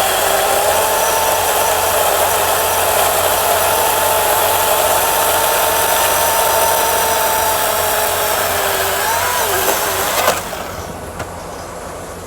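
Chainsaw running at a steady high pitch, which dips and wavers about nine seconds in and then stops sharply with a click about ten seconds in. A quieter low hum carries on after it stops.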